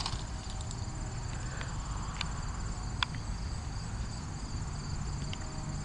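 Field ambience: insects chirring in a steady high trill over a low rumble of wind on the microphone, with a few sharp clicks, the loudest right at the start and another about three seconds in.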